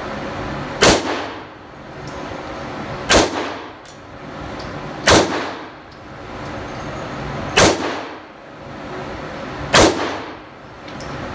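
Five handgun shots fired at a steady pace, about two seconds apart, each a sharp crack with a short echo off the walls of an indoor shooting range.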